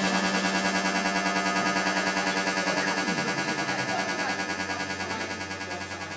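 Live-coded SuperCollider electronic music: a dense, buzzing, hissy synthesized texture pulsing several times a second. A low tone slides down about halfway through, and the whole texture slowly grows quieter.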